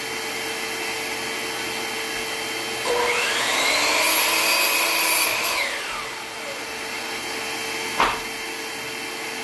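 DeWalt sliding compound miter saw starting up about three seconds in, rising in pitch, then its blade cutting through a tongue-and-groove board before the motor is switched off and winds down with falling pitch. A single sharp knock comes near the end, over a steady background drone.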